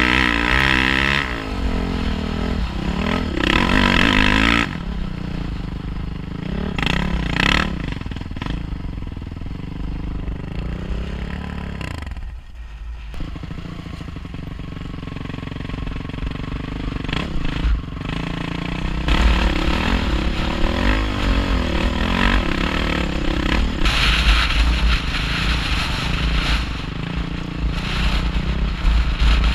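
Off-road dirt bike engine revving up and down as the rider works the throttle over a rough trail, with a low rumble of wind on the helmet-mounted microphone. The throttle closes briefly about twelve seconds in and the engine then climbs back up.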